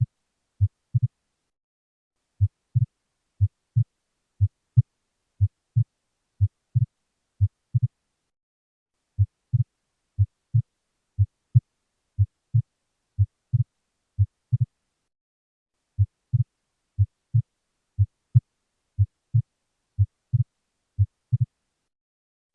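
Heartbeat heard through a stethoscope: low thuds at about one beat a second, each beat a close pair of sounds, with the second heart sound widely split (exaggerated splitting of S2). The beat is broken by brief pauses three times.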